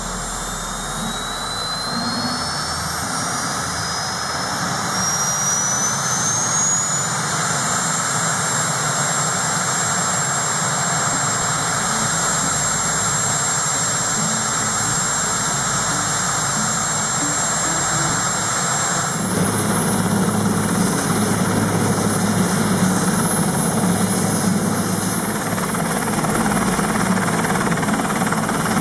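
Sikorsky S-61N helicopter starting up on the ground. Its turbine whine rises steadily in pitch over the first several seconds, then holds a steady high whine while the rotors turn slowly. About two-thirds of the way through, the sound changes abruptly to a fuller low hum with a higher whine on top, as the rotors turn faster.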